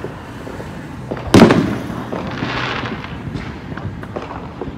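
A loud firework bang about a second and a half in that fades away over half a second, followed by a softer hiss and a few faint distant pops.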